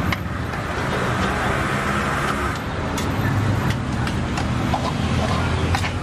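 Street ambience: a steady low rumble of road traffic, with a few sharp clicks of a metal spatula against a flat griddle pan from about halfway through.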